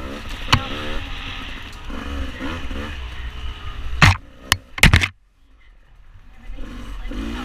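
Dirt bike engine revving up and down on a rough trail, with a sharp knock about half a second in and several loud knocks around four to five seconds in. The sound then drops out almost entirely for about a second and a half before the engine comes back near the end.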